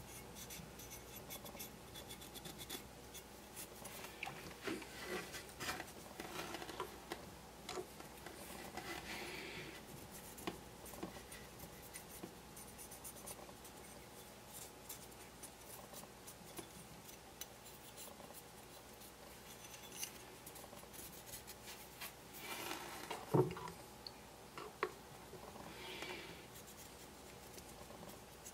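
Cotton swab scrubbing the chassis of a Hornby APT model train bogie: faint scratching and rubbing, with small clicks as the part is handled and one sharper click late on.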